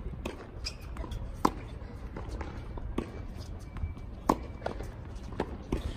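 Sharp knocks of a tennis ball on a hard court: a few bounces before the serve, then the serve struck by the racket, the loudest knock about four seconds in.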